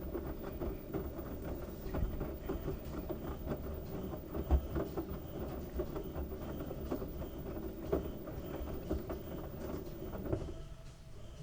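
LG washing machine drum turning a load of wet towels, rumbling with irregular knocks and thuds as the load drops. The drum stops about ten seconds in, leaving a quieter hum.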